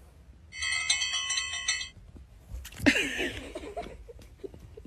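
A bell-like chime of many ringing tones lasting about a second and a half. About three seconds in it is followed by a short, sudden cry that falls in pitch.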